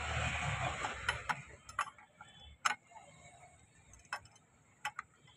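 Scattered sharp metal clicks and clinks, about half a dozen, as a scooter's exhaust pipe flange and a spanner are handled against the engine's exhaust port. A rustling scrape of handling opens it.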